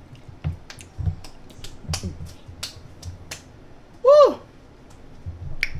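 Close-miked mouth sounds of eating: a run of sharp wet clicks and smacks, two or three a second, each with a soft low thump. About four seconds in comes one short, high vocal sound that rises and falls in pitch.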